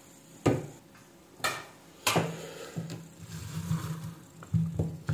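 Handling noise as a switching power-supply circuit board is picked up and turned on the workbench: a few sharp clicks and knocks, then a low rubbing, with two more clicks near the end.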